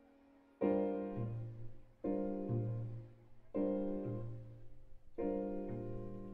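Soft piano music: four slow chords, one about every second and a half, each left to ring and fade, with a low bass note coming in just after each chord.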